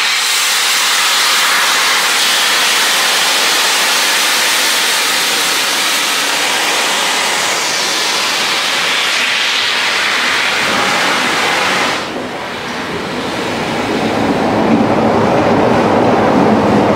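Loud steady hiss of steam escaping from LNER A3 Pacific 60103 Flying Scotsman, blowing from its cylinder drain cocks, which cuts off abruptly about twelve seconds in. Then the engine of Class 33 diesel locomotive D6575 runs, growing louder as it approaches.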